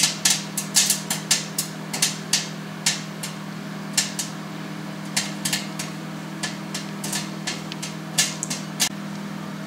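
Strawberry popcorn kernels popping in a cling-filmed glass bowl inside a running microwave oven: sharp pops over the microwave's steady hum, coming thick and fast at first and thinning out to scattered pops later.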